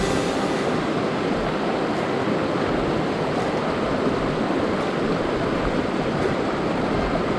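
Shallow, fast mountain river rushing over rocks and boulders: a steady, even rush of water.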